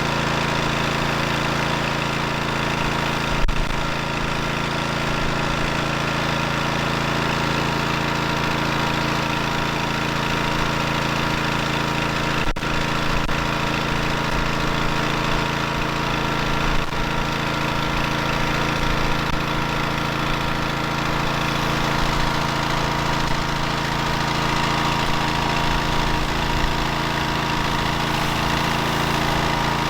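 Pressure washer running steadily, driving a surface cleaner as it sprays across pavement. A few brief knocks break in, the loudest a few seconds in.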